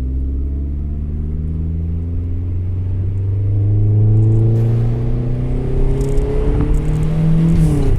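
Volvo 480 Turbo's 1720 cc turbocharged four-cylinder engine breathing through a handmade exhaust, pulling under acceleration with the revs climbing steadily. The revs drop sharply near the end.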